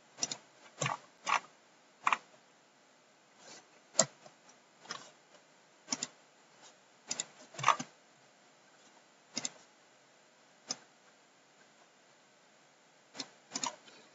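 Sharp clicks of a computer mouse and keyboard, about fifteen at irregular intervals, some in quick pairs and a short cluster near the end, over faint room hiss.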